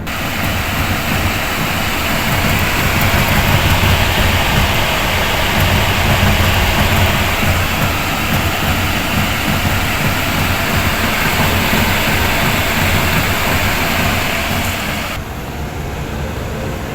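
Trane packaged air-conditioning unit running with a loud, rough, uneven rumble from its blower wheel, whose bearing has failed. The noise drops a little about fifteen seconds in.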